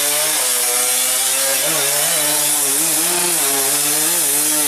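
Off-road trail motorcycle engine held at high revs, its pitch steady with small rises and dips, under heavy load with the rear wheel spinning in mud on a steep dirt hill climb.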